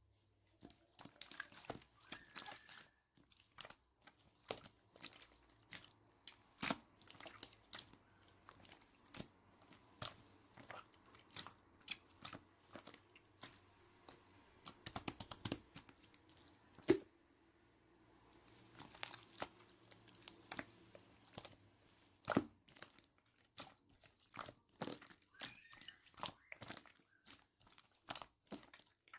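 Many sharp crunches and clicks at an irregular pace, close to the microphone.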